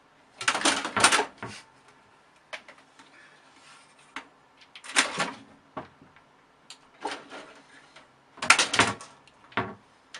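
Irregular bursts of knocking, scraping and rustling in a small room, five or so clusters with scattered single clicks between them. The loudest come about half a second in and again about eight and a half seconds in.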